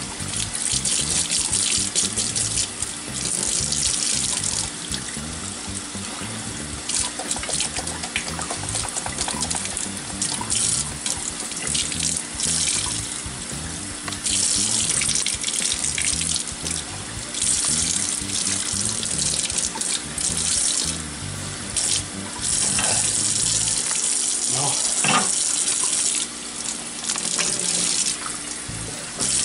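Water running, in surges that swell and drop every second or two, over background music.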